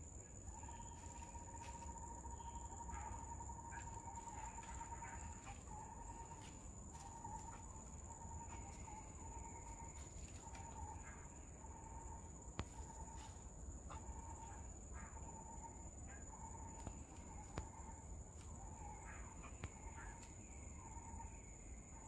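Faint forest ambience: insects trilling steadily, with a lower pulsing trill and scattered short bird chirps over it, and a few brief clicks.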